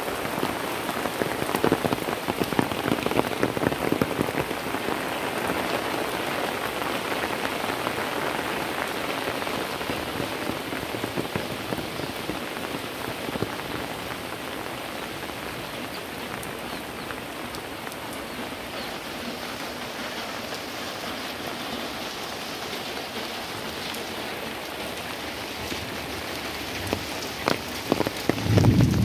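Steady heavy rain, a dense hiss of drops pattering on the ground and leaves, slightly louder in the first few seconds. A brief loud low-pitched sound breaks in at the very end.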